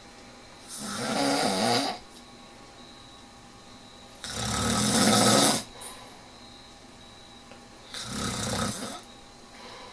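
A man snoring in his sleep: three long snores about three and a half seconds apart, each building up and then cutting off sharply, with quiet gaps between them.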